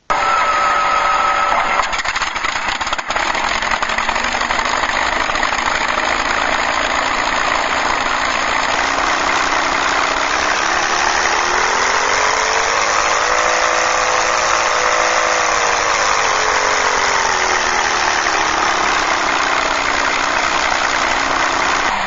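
WWII warplane piston-engine start-up sound played back by a MrRCSound V4 RC sound unit through two small speakers. It starts abruptly with a short whine, then the engine runs loudly. In the second half it revs up and falls back down over several seconds.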